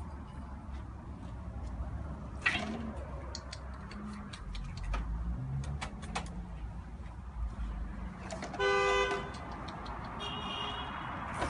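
A single short horn toot, one steady-pitched blast lasting under a second, about eight and a half seconds in. Throughout, there is low rumble and scattered clicks of handling noise.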